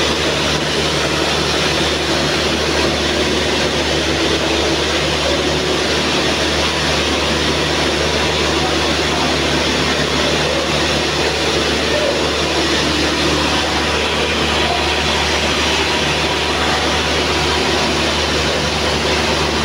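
Nylon zipper coil sewing machines running, a steady, even mechanical din with a low hum under it.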